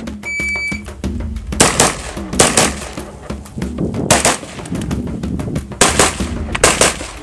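A shot-timer start beep, one short high tone about a quarter second in, then a semi-automatic rifle firing shots in quick pairs, several pairs spread over the next five seconds, as the shooter runs an IPSC rifle stage.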